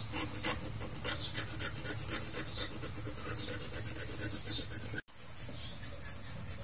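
A thin metal pick scraping caked carbon off a diesel engine piston in quick, short scratchy strokes. The scraping cuts off suddenly about five seconds in.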